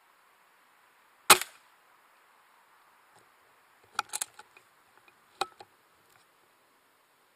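An air rifle fires once, a single sharp crack with a short tail, about a second in. A few quieter clicks and knocks follow about three and four seconds later.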